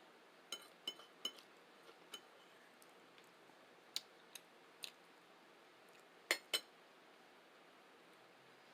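Eating utensil clinking against a dish: a scattering of short sharp clicks, a quick run of three near the start, and the two loudest close together about six and a half seconds in.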